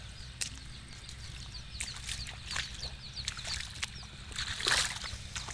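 Bare feet squelching and splashing through flooded mud, with a louder splashy step about four and a half seconds in, and short high chirps repeating in the background.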